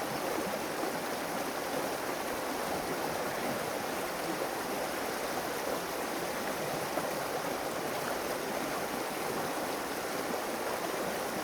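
Stream water running steadily, an even rushing noise that does not change.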